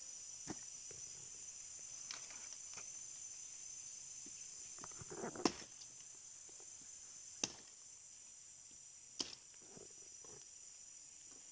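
About four sharp knocks or snaps, the loudest about five and a half seconds in, with a few fainter knocks between them, over a steady high drone of forest insects.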